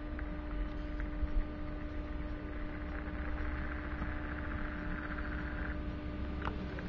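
Steady hum over a low rumble, with a faint fluttering whirr from the camera's zoom motor from about three seconds in to almost six seconds in.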